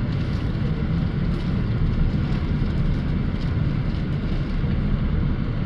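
Steady low rumble of heavy road traffic: car, van and scooter engines and tyres.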